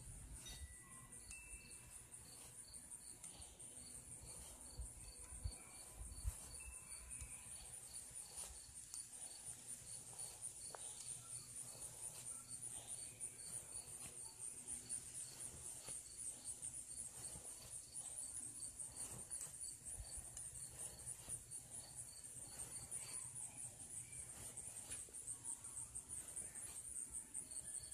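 Faint, steady insect chirping: a rapid high trill runs throughout, with a second chirp repeating about twice a second. Two soft knocks come about five and six seconds in.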